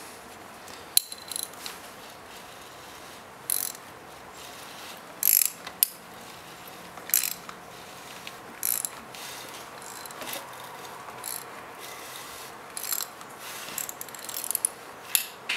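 Socket wrench ratcheting in short bursts of clicks every second or two as the Kawasaki KLR 650's engine is turned over counterclockwise by hand at the crankshaft bolt.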